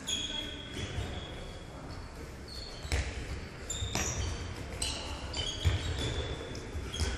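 Indoor handball play: a handball thudding on the hall floor and being caught at irregular intervals, with sports shoes squeaking briefly on the court, in a large echoing sports hall.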